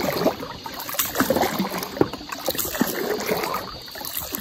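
Wooden paddle working in river water, stirring and splashing with a bubbling gurgle, with scattered small knocks.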